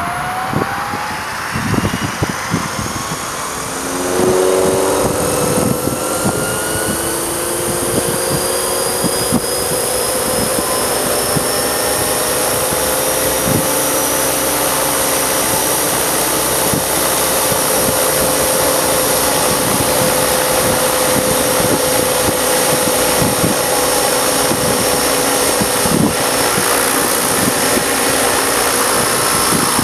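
Electric RC helicopter (Ikarus Eco 8) spooling up: the motor and gear whine rises in pitch over the first few seconds and gets louder about four seconds in. It then holds a steady whine with rotor noise, the pitch creeping slowly higher.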